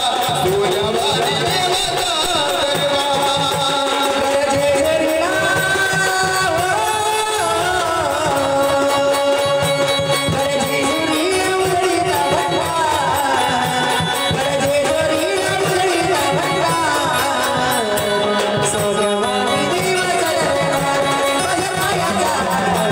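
Marathi gondhal folk devotional song: an ornamented, wavering vocal melody over steady drum accompaniment.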